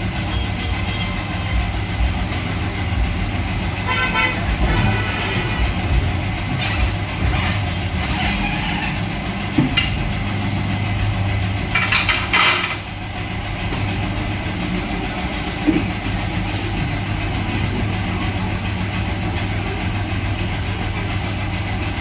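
Steady low machine hum at a tyre-changing machine, with a short rapidly pulsing sound about four seconds in and a brief louder blast of under a second about twelve seconds in.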